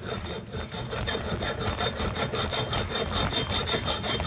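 Hacksaw sawing through the metal casing of a salvaged solenoid, with steady rasping strokes.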